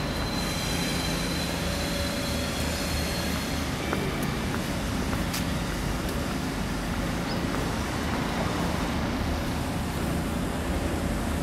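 Steady low rumble of city traffic, with faint high tones coming and going.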